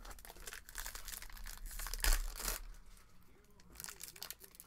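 Foil wrapper of a 2022 Topps retail baseball card pack crinkling and tearing as it is ripped open by hand, with the loudest tear about two seconds in.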